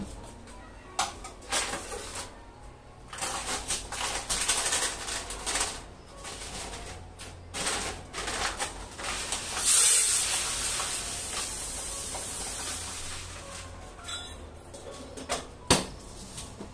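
Kitchen handling sounds: stainless steel containers and lids clinking and set down on the counter, with plastic packaging rustling. A louder rustling hiss starts suddenly about ten seconds in and fades over a few seconds.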